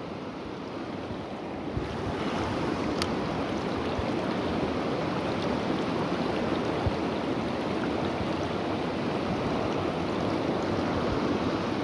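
Steady rush of a shallow, rocky river pouring over riffles, growing a little louder about two seconds in.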